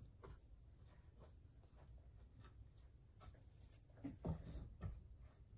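Faint handling sounds: a rag rubbing over the sewing machine's greased internal gears, with a few soft knocks and taps about four seconds in.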